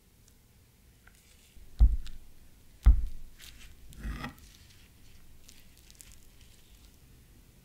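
Two heavy knocks about a second apart, then a knife slicing lengthwise through a peeled banana on a wooden cutting board with a soft, squishy cut.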